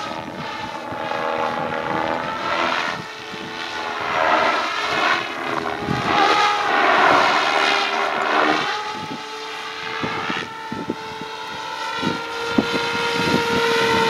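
SAB Goblin Urukay electric radio-controlled helicopter in flight: a steady rotor and motor whine that rises and falls in pitch as the model flies past.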